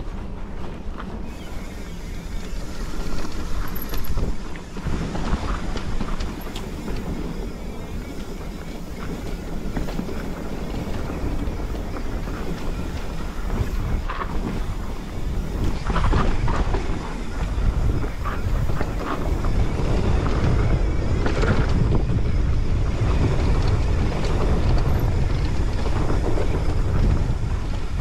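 Mountain bike descending a dirt singletrack: wind buffeting the microphone and tyres rolling over dirt, with occasional short clatters over bumps. It gets louder about sixteen seconds in, as the bike picks up speed.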